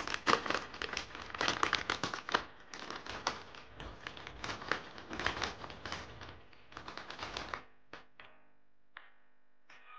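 Crisp cassava chips pouring from a plastic bag into a plastic canister: a dense crackling rustle of chips clattering together and the bag crinkling. About three quarters of the way through it thins to a few separate clicks.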